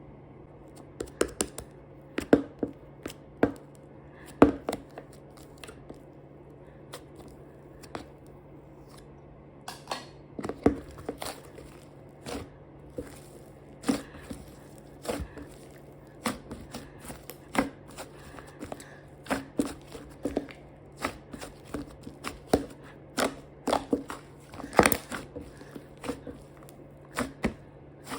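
Slime being squeezed, stretched and poked by hand, giving irregular sticky pops, clicks and crackles, the loudest about 25 seconds in. A faint steady hum runs underneath.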